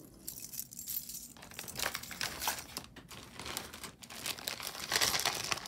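Crinkly packaging being handled and opened: an irregular run of crinkling and rustling that gets loudest near the end.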